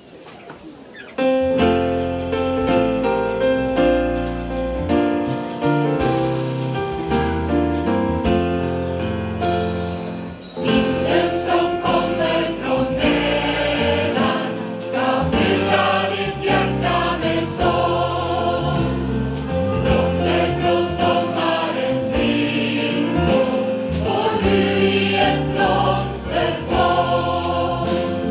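Choir with a live band of keyboard, guitar and drums performing a song. The band's intro starts about a second in, and about ten seconds in the choir comes in singing.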